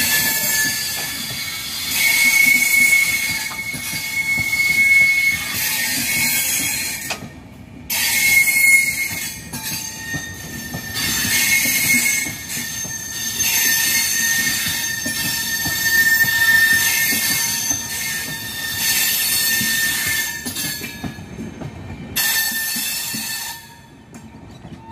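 Indian Railways passenger coaches rolling slowly past, their wheels squealing in high steady tones that come and go over the rumble of the running gear. The sound falls away near the end as the last coach passes.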